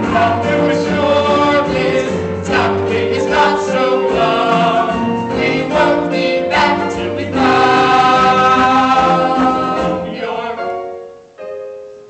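Musical-theatre cast singing together as a chorus, with changing held notes that build to a long sustained chord about seven seconds in, which then fades out near the end.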